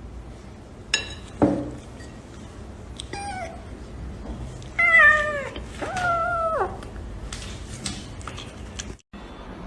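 A cat meowing three times, each call falling in pitch at its end, the middle one the loudest. Two short knocks come about a second in, before the meows.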